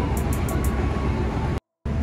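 Steady rumble of a moving diesel-hauled passenger train heard from on board, with a run of quick light clicks in the first moments; the sound drops out completely for a moment near the end.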